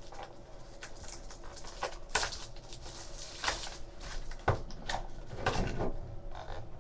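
Handling of a trading card box and its packs: irregular light taps, clicks and brief crinkles of cardboard and wrapper being opened.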